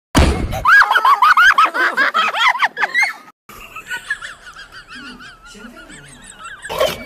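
High-pitched laughter, many short shrieking peals in quick succession, cutting off abruptly about three seconds in. After a brief silence comes a dog whining softly, a quieter wavering sound.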